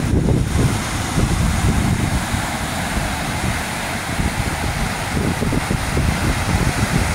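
Sea waves breaking and washing up a pebble beach, with strong wind buffeting the microphone as a loud, uneven low rumble under the hiss of the surf.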